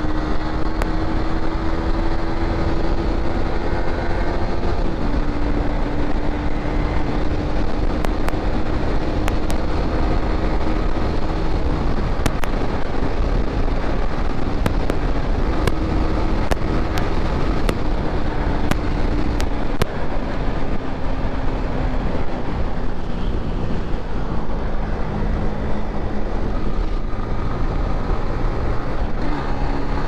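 Motorcycle engine running while riding, its note holding steady and dropping in pitch a few times, lowest in the last third before rising again near the end, over wind rush on the microphone.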